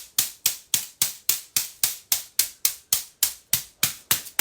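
Bamboo body tapper striking the back of the head in a steady rhythm, about four crisp taps a second.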